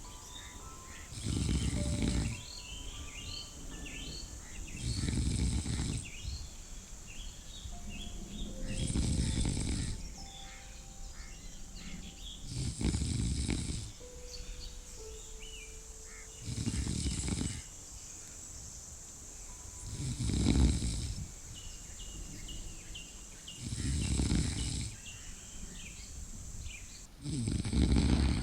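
Slow, regular snoring, about one snore every four seconds, eight in all. Faint short chirps and soft held tones sound between the snores, over a steady hiss.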